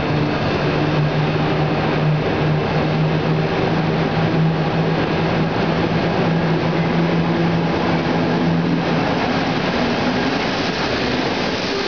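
EP09 electric locomotive hauling a passenger train, running into the platform. Steady rumbling noise, with a steady low hum that stops about nine seconds in, as the locomotive draws alongside near the end.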